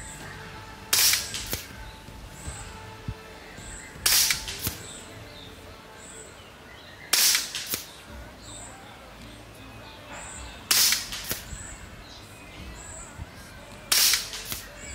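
A Kalibrgun Springbok 5.5 mm semi-automatic PCP air rifle with a moderator fires five shots, about three seconds apart. Each is a sharp crack with a short tail and a fainter crack just after. It is firing 15.89-grain JSB Jumbo Exact pellets at about 980 fps on the regulator's factory setting.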